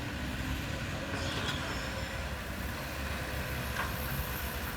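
Steady low mechanical rumble of a running engine.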